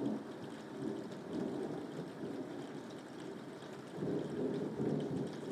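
Steady rain with rolling thunder rumbling underneath, the rumble swelling louder about four seconds in.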